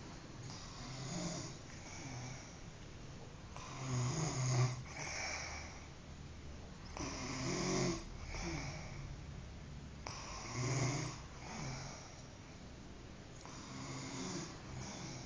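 A sleeping person snoring in a slow, regular rhythm, one snore about every three seconds, about five in all.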